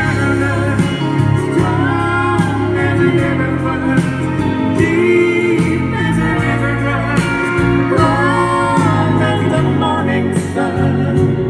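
A song with a singing voice over a steady bass line, played back on a Panasonic A7 mini hi-fi system and heard through its speakers.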